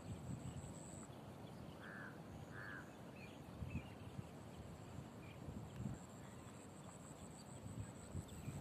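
Faint outdoor ambience: wind buffeting the microphone in low, uneven gusts, with a few distant animal calls, two short ones about two seconds in and fainter chirps after.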